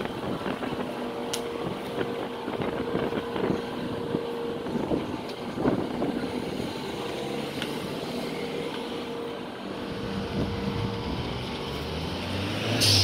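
Street traffic: car engines running and moving slowly along the road over a steady hum, with a low engine rumble building in the last few seconds and a brief loud hiss right at the end.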